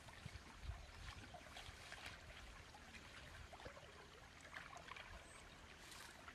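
Near silence, with faint small splashes and trickling as hands work in shallow, muddy ditch water.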